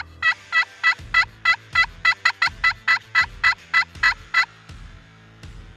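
Friction pot turkey call worked with a wooden striker, running a long string of about sixteen hen yelps at roughly three a second, each note sliding down in pitch, to draw in a gobbler. The series stops about a second and a half before the end.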